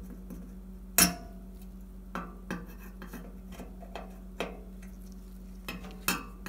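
Sharp metal clicks and scrapes of a flat-blade screwdriver working a metal keeper clip onto a gas stove's new spark igniter under the sheet-metal stovetop. One loud click comes about a second in, and a few fainter clicks follow.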